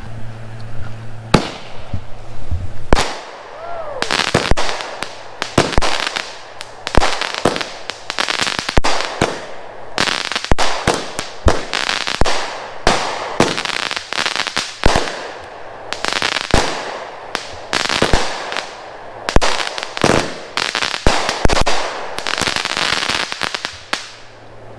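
A 16-shot consumer firework cake firing: a rapid string of launch thumps and aerial bursts, each followed by crackling, beginning about a second in and going on for over twenty seconds.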